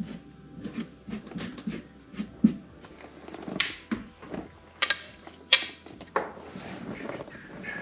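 Irregular clicks, taps and knocks of hand tools and small hardware being handled and set down on a boat's carpeted dash, with several sharper clacks in the second half.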